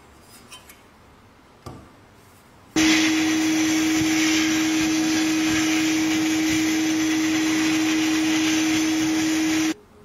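A small electric power tool running at a steady speed, with a strong hum and a grinding hiss over it. It starts abruptly about three seconds in and cuts off shortly before the end, after a couple of light clicks.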